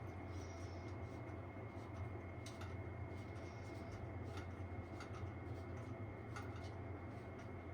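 Steady low hum with a faint steady high tone, and scattered light clicks and taps of shelf parts being handled.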